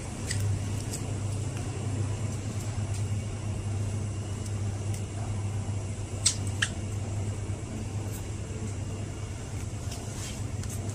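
Steady low machine hum of a supermarket's indoor background noise, with two sharp clicks close together a little past the middle.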